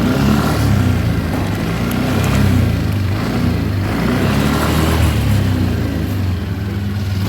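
Yamaha NMAX scooter's single-cylinder engine revving up and down several times on a test after a final-gear repair, running without the earlier whine, which the owner calls smooth.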